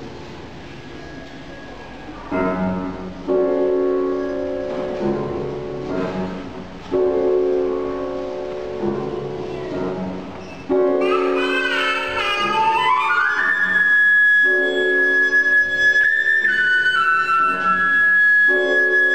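Grand piano playing slow struck chords, each one ringing on. About eleven seconds in a flute joins with a quick rising run and then holds a long high note over the piano.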